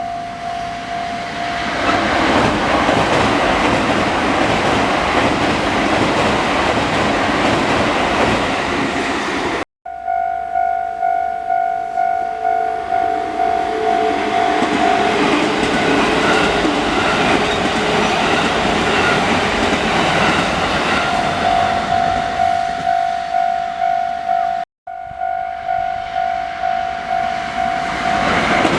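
Japanese level-crossing warning bell ringing in a steady, evenly pulsed clang about twice a second while a train passes over the tracks with loud rushing wheel noise and clacking over the rail joints. The sound cuts out for an instant twice.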